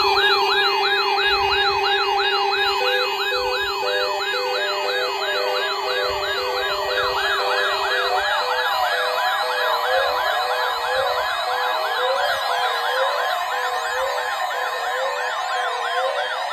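Layered electronic siren tones: a siren sweeping up and down in quick whoops, about three a second, over a steady low tone. A pulsing tone joins about three seconds in and a second whooping siren about six seconds in, and the low tone stops about eight seconds in.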